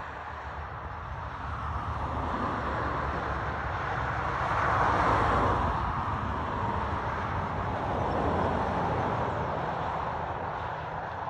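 A vehicle passing at a distance: a steady rushing noise that swells to its loudest about halfway through, then slowly fades.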